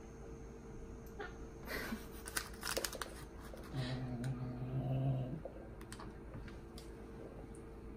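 A cat eating a snack: a run of small clicks and crinkles, then a low, steady drawn-out cat vocal sound lasting about a second and a half.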